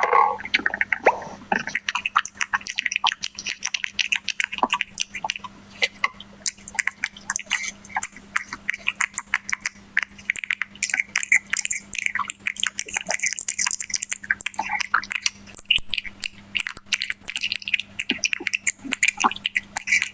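A cat eating close to the microphone: a continuous run of quick, wet chewing and licking clicks, over a faint steady hum.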